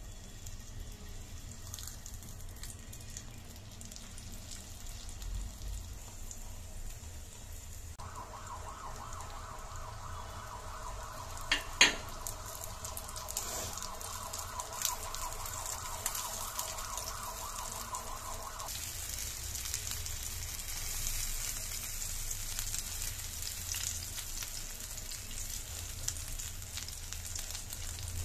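Oil sizzling in a frying pan around stuffed egg-paratha pockets, the sizzle growing stronger through the second half. A steady whining tone runs for about ten seconds in the middle, and a sharp clack, the loudest sound, comes near its middle.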